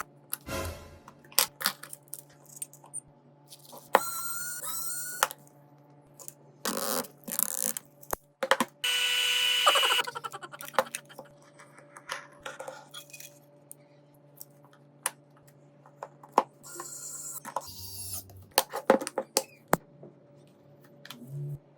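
Small tools and phone parts clicking, tapping and scraping during hand repair work, with a steady whir for about a second around the middle, over a faint constant low hum.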